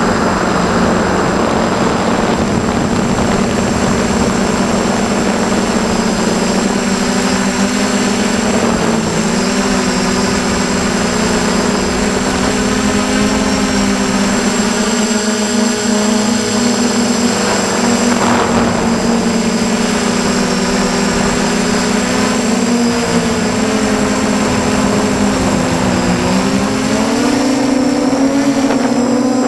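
F450 quadcopter's electric motors and propellers buzzing continuously, heard close up from the drone's own camera, the pitch shifting up and down with the throttle and rising near the end.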